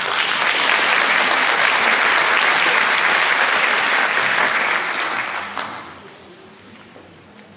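Audience applauding, starting suddenly and dying away after about five or six seconds.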